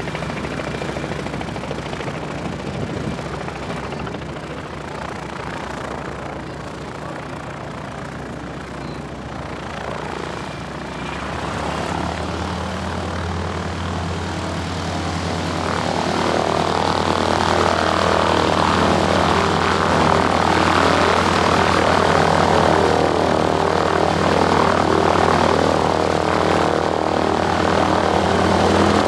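North American SNJ-3 Texan's Pratt & Whitney R-1340 Wasp nine-cylinder radial engine running at taxi power, propeller turning, growing steadily louder from about halfway through as the aircraft taxis toward the listener.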